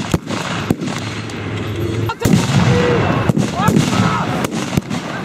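Scattered blank gunfire, single shots at irregular intervals. About two seconds in, a pyrotechnic battle-effect charge goes off with a heavier, deeper blast that hangs on for a while.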